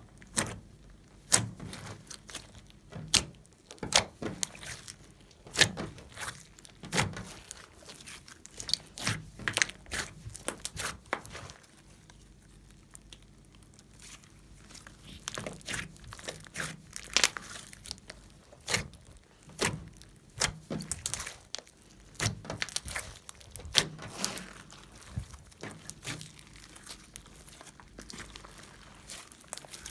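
Glossy slime being pressed, stretched and squeezed by hand, giving irregular sharp wet pops and clicks as trapped air pockets burst. It goes quieter for a few seconds near the middle, then the popping picks up again.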